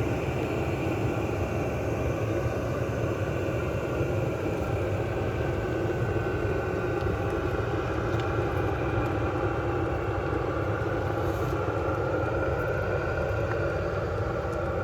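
Chinese 8 kW diesel air heater running steadily at full power during heat-up, its blower fan and burner making an even mechanical noise.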